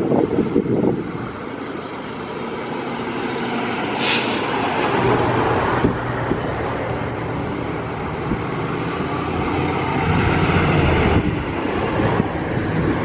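Diesel engine of a fire truck running, growing louder and then easing off near the end. A short, sharp air-brake hiss comes about four seconds in.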